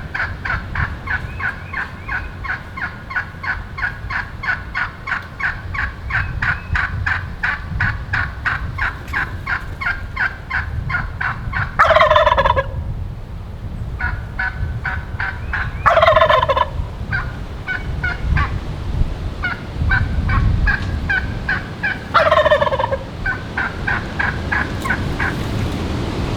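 A young male Rio Grande wild turkey (a jake) gobbling three times close by, the gobble deep for a jake. Between the gobbles comes a fast run of short, repeated turkey notes, about three or four a second. Gusty wind rumbles on the microphone throughout.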